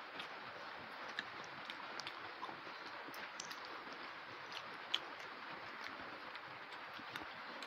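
Eating by hand: chewing and fingers mixing rice on plates, heard as scattered small clicks and smacks over a steady hiss.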